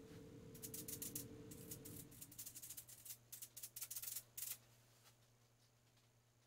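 Paint brush scrubbing in quick, short strokes, a quiet scratchy rustle several times a second that stops about four and a half seconds in.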